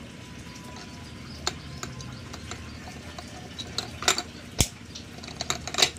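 Plastic bottles packed with steamed cracked corn being handled and shifted in a metal steamer pot: scattered clicks and knocks, with a sharp knock about four and a half seconds in and a run of clicks near the end.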